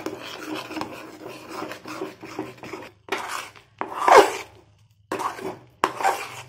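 Metal spatula scraping around a kadai while stirring coarsely ground peanuts into thick jaggery syrup cooked to the hard-crack stage. Continuous scraping for about three seconds, then four separate strokes, the loudest about four seconds in.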